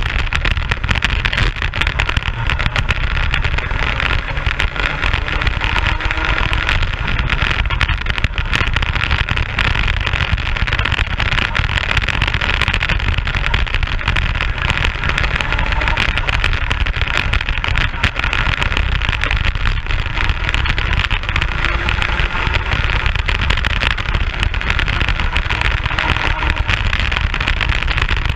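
Racing kart engine running at speed, recorded by an onboard camera, under heavy wind rumble on the microphone. The engine note rises and falls faintly as the kart goes through the corners.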